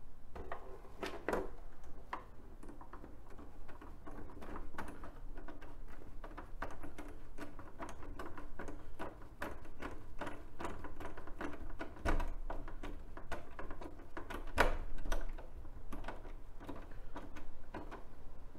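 Hand screwdriver driving small screws into a plastic HogWorkz lower fairing, giving a busy run of irregular clicks and ticks with plastic parts knocking, and a few louder knocks along the way.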